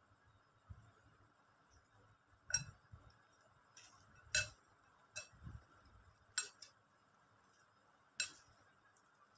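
A metal spoon clinking against a glass bowl while stirring a dry, crumbly mixture, with about five faint, sharp clinks spaced a second or two apart.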